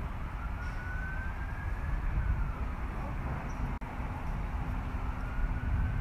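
An emergency siren wailing, its pitch slowly rising and falling twice, over a steady low rumble. The sound drops out for an instant just before the four-second mark.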